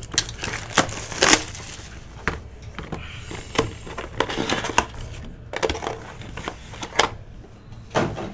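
A cardboard trading-card hobby box being opened by hand and its card in a clear plastic holder pulled out: crinkling and tearing of the box, with a string of sharp clicks and knocks from the cardboard and plastic.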